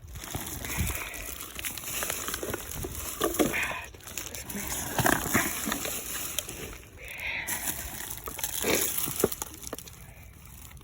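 Hands digging through dump debris: rustling and scraping with many small clicks and clinks of glass, metal and plastic junk being moved.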